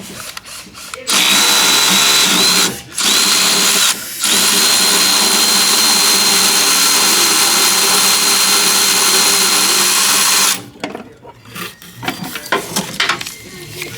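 Handheld electric power tool, drill-like, running at a steady high speed with a constant whine. It is held on for about nine seconds, with two brief let-offs near the three- and four-second marks, then stops.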